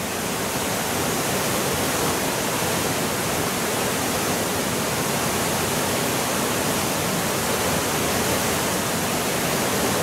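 Steady rush of a waterfall and the rocky stream below it.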